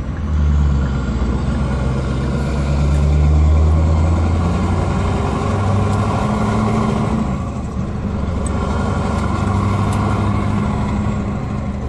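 Scania R620's V8 diesel engine with an open exhaust, heard from inside the cab, running loud under way as the truck pulls away; its deep note steps to a new pitch a few times as the gears change.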